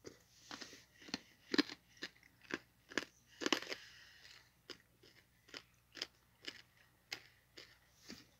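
Footsteps on rough, gritty asphalt, about two steps a second, each a short crunch.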